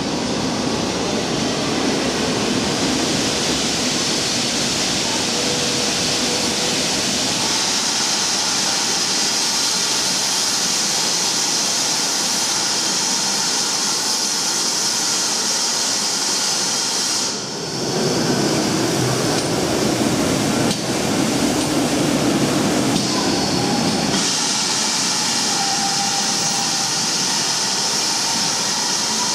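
GWR Prairie 2-6-2T steam tank locomotive running into a station platform, with a loud, steady hiss of escaping steam. After a break partway through comes lower rumbling, then the steam hiss starts again with the engine standing at the platform.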